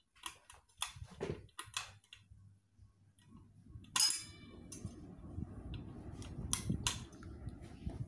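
Elmark EMD 02 ceiling fan's pull-chain speed switch being worked: a series of sharp clicks and taps of the chain against the metal switch housing, the loudest about four seconds in with a brief metallic ring. Under it, a low rumble from the running fan builds from about three seconds in.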